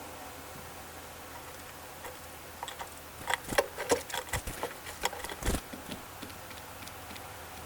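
An irregular run of sharp taps and knocks, bunched over about three seconds in the middle and a few of them heavier and thuddier, over a faint steady hiss.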